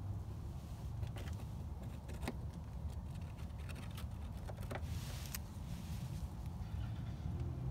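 Gloved hands handling a small glue bottle close to the microphone: scattered small clicks and rustles, with a brief hissing rustle about five seconds in, over a steady low rumble.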